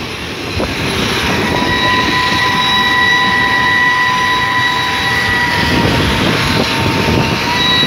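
Running noise of a moving passenger train heard from an open carriage window: a steady rumble and clatter of wheels on rails, with a steady high whine joining about a second and a half in.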